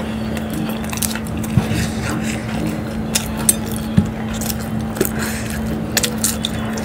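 Close-miked eating: chewing, then the crisp samosa pastry cracking as it is torn apart and bitten into, giving irregular sharp crackles and clicks, loudest about three to four seconds in. A steady low hum runs underneath.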